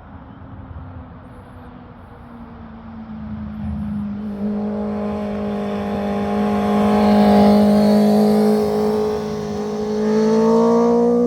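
Motorcycle engine running at a steady, fairly high pitch, growing louder and rising slightly in pitch near the end.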